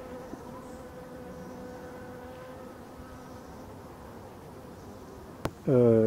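European dark honeybees buzzing in flight around the hive, a steady hum that fades out after about three and a half seconds. Near the end comes a single sharp click, then a man's voice.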